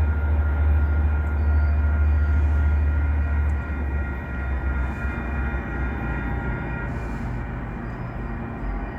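Caltrain passenger train running on the line: a strong, steady low rumble with faint steady whining tones above it, loud for the first three and a half seconds and then easing off.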